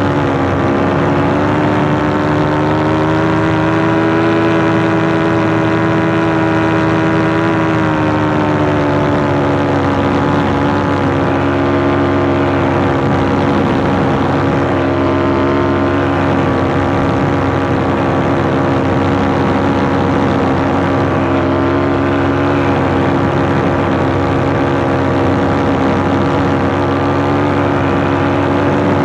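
Paramotor engine and propeller running steadily in flight, a loud even drone. Its pitch rises slightly about two seconds in and settles back a little lower around eight seconds in.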